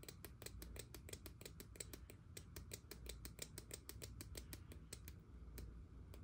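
Rapid, faint clicking from an Omega Genève automatic's crown and quick-set date mechanism as the date is advanced, about six clicks a second, stopping shortly before the end.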